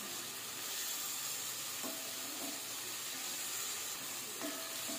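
Eggs sizzling as they fry in hot oil in a pot, stirred and pushed about with a wooden spatula. The sizzle is a steady hiss.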